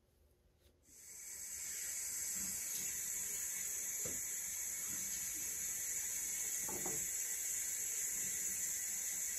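Bathroom sink tap turned on about a second in and running steadily in a hissing stream, with a few faint splashes as hands wash in the water.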